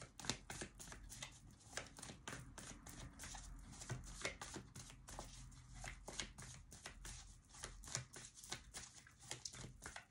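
Tarot cards being shuffled by hand: a quiet, uneven run of short card clicks and slaps, several a second.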